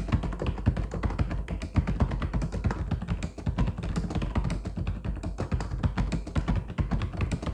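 Fast, continuous typing on a mechanical keyboard: a dense stream of key clicks, several strokes a second, with a deep, solid thud under each press.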